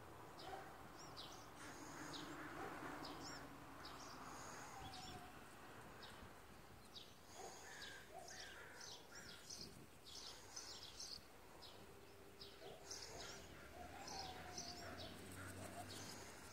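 Faint chirping of birds: many short, high calls repeating throughout, with a few lower sliding calls among them.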